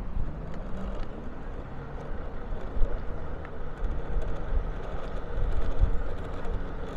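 Motorbike engine running while riding along a street, with wind and road rumble. The engine note rises in the first second as it picks up speed.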